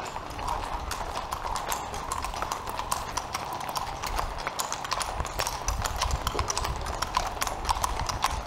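Hooves of several horses and ponies walking on an asphalt street: a continuous, irregular clip-clop of overlapping hoof strikes.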